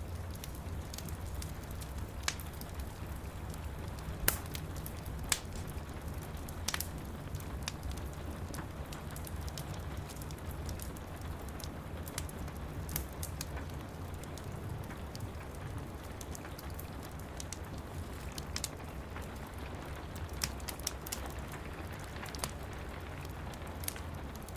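Wood fire crackling, with irregular sharp pops throughout, over the steady hiss of rain.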